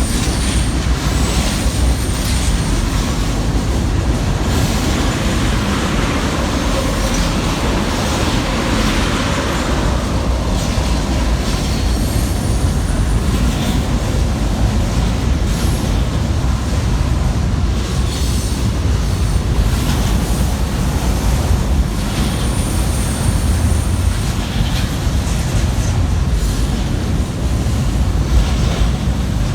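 Freight train cars rolling slowly past, a steady loud rumble of wheels on the rails with clicks at the rail joints. A few brief high wheel squeals come through, around the middle and again later on.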